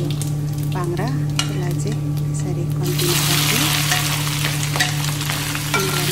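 Oil frying in an iron wok. About three seconds in, pieces of chicken gizzard are tipped from a plate into the hot oil and a loud sizzle comes in, with a steel spoon scraping as they are stirred. A steady low hum runs underneath.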